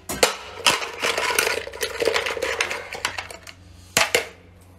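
Spicy canned abalone in their shells tipped out of a clear can onto a metal tray: shells clattering and knocking on the tray for about two and a half seconds, with a couple of sharp knocks just before and one more near the end.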